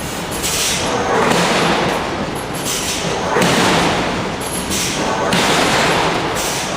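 Hydraulic forging hammer striking hot steel over and over, a heavy blow about every two seconds over continuous loud forge-shop noise.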